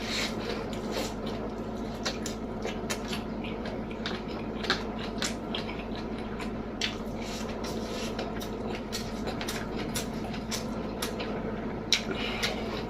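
Close-miked chewing and mouth smacking as a person eats, many short wet clicks at an irregular pace, over a steady low hum.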